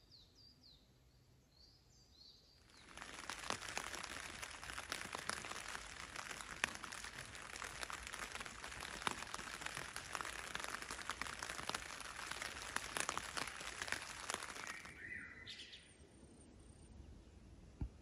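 Rain pattering on a hammock tarp as a dense, even spatter of small drops, starting suddenly about three seconds in and easing off about fifteen seconds in. Birds chirp briefly at the start, and one bird calls just as the rain stops.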